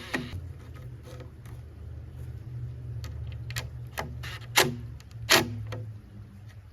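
A few sharp knocks from building work with wooden boards, the two loudest about a second apart past the middle, over a steady low hum.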